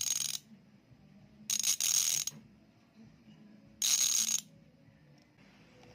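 Six-pawl Pasak bicycle freehub buzzing as it freewheels: three short bursts of rapid pawl clicking, each under a second, with quiet gaps between them.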